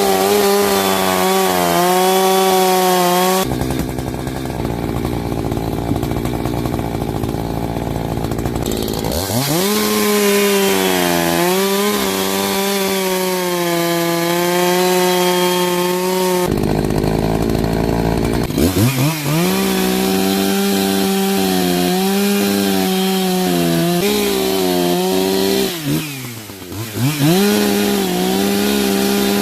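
Two-stroke chainsaw running at high speed while cutting firewood. The engine drops off between stretches and winds back up to full speed twice, about nine and nineteen seconds in. Near the end it briefly dips and recovers.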